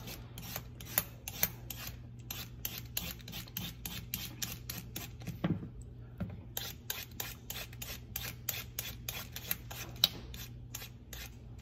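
Vegetable peeler scraping down a carrot in quick repeated strokes, about four a second, with a short break about halfway through.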